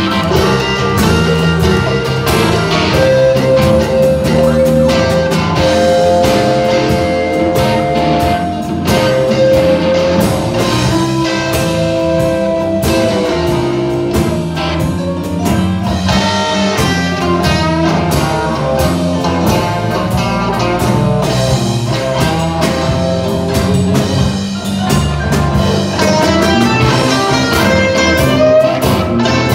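Live band with electric guitars, bass guitar and drum kit playing an instrumental number, with long held lead notes over a steady beat for much of the time.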